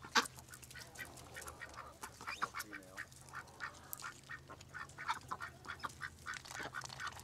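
White domestic ducks feeding: many quick clicks of bills pecking and dabbling at the ground and at a metal bowl, with quacks mixed in.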